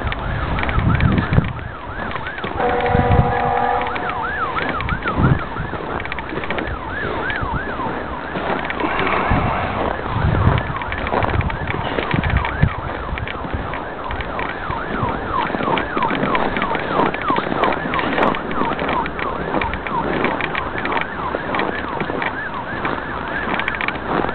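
A siren wailing in a fast rising-and-falling yelp, about three sweeps a second, through most of the stretch. A horn blasts for about a second near the start. Steady wind-like noise with scattered low thumps runs underneath.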